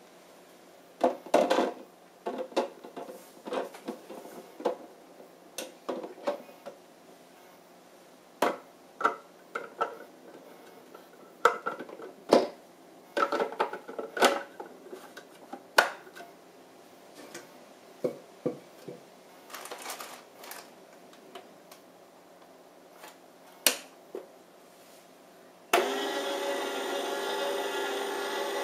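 Clicks and knocks of plastic parts being handled and fitted together as a Sharp EJCP10BJR slow juicer is assembled. Near the end its motor starts suddenly and runs steadily with a mechanical hum.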